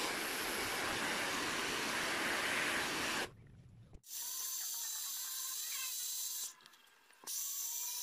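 Handheld electric hair dryer blowing hot air onto a motorcycle headlight assembly to heat its sealant. It runs steadily for about three seconds, stops briefly, then runs again in shorter, thinner-sounding stretches with a short break between them.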